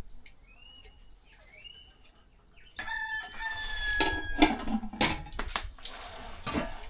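A rooster crowing, one long call starting about three seconds in, with small birds chirping faintly before it. Sharp clicks and knocks follow after the crow.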